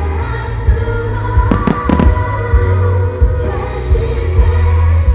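A song with singing plays loudly over the sound system with a heavy low pulse, and a few sharp firework bangs go off close together about one and a half to two seconds in.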